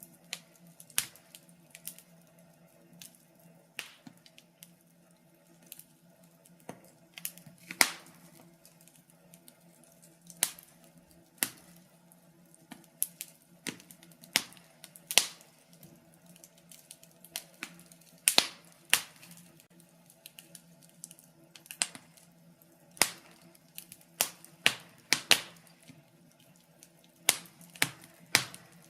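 Wood fire crackling in a fireplace: irregular sharp pops and snaps, about one or two a second at uneven spacing, over a faint steady low hum.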